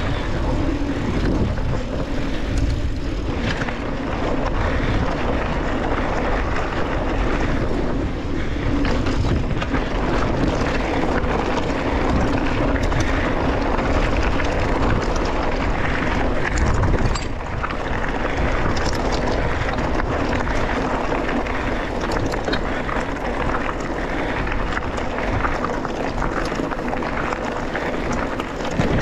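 Downhill mountain bike descending at speed over dry dirt and loose rock, its tyres rolling on gravel and the bike rattling over rough ground, with heavy wind noise on the microphone.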